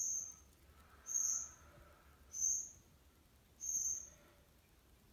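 Cricket chirping: four high-pitched chirps, evenly spaced about one every 1.3 seconds.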